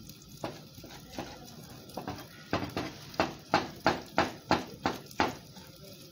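Chef's knife chopping tomato on a plastic cutting board: a few scattered taps, then from about two and a half seconds in a quick, even run of knife strikes on the board, about three a second.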